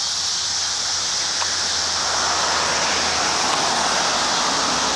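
Chorus of cicadas in the trees: a loud, steady, high-pitched buzzing drone that swells a little after about two seconds.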